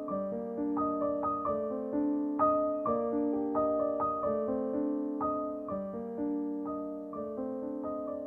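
Background piano music: gentle chords and a melody, notes struck about twice a second.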